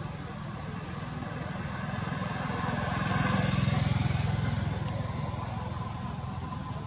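A motorbike engine passing by, growing louder to a peak about halfway through and then fading away.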